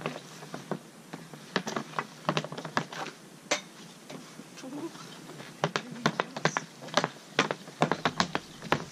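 Sharp, irregular clacks of ice-hockey sticks and pucks on a plastic shooting pad, with pucks being shot at the goal. The loudest clack comes about three and a half seconds in, and the clacks come thick and fast in the second half.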